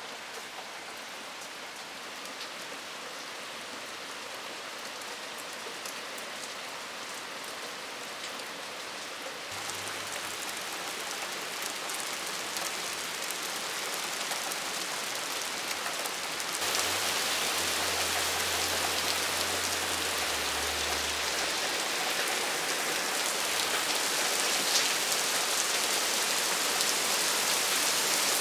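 Heavy rain falling steadily onto leaves and a wooden deck, with individual drops ticking through the hiss. It grows louder throughout, jumping up suddenly a little past halfway.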